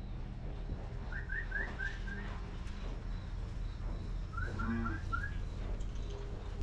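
A small bird chirping in two quick runs of four or five short rising notes, a few seconds apart, over a steady low hum.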